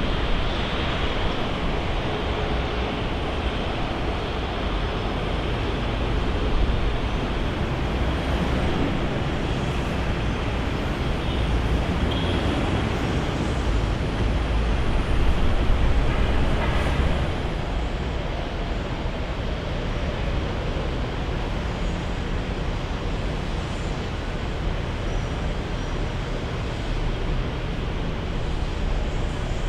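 Jet airliner engine noise, a steady heavy rumble that swells a little around the middle, with a faint high whine sliding in pitch.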